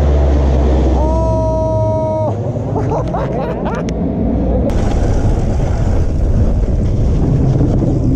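A large aircraft flying low overhead: a loud, deep engine drone that fades after about two seconds. Shouting and laughter follow, then, from about halfway, the wind and tyre noise of a mountain bike rolling down a dirt trail.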